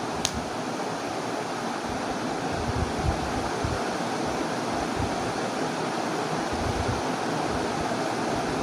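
Duck meat and spice gravy sizzling steadily in a nonstick pan as it is fried down with a little added water, while a wooden spatula stirs and scrapes through the meat with occasional soft knocks.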